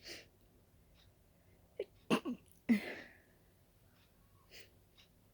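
A person sneezing from a dust allergy. A short sniff comes at the start, then a couple of quick catching breaths about two seconds in, then the loud sneeze just under three seconds in, and a faint sniff near the end.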